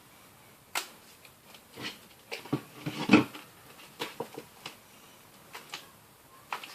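Fluffy shaving-foam slime being worked, giving irregular sticky pops and clicks, with a dense burst of them about three seconds in.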